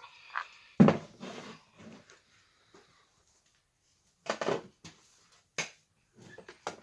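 Paper being cut with scissors amid scattered knocks and clicks of handling on a workbench; the loudest is a thump about a second in.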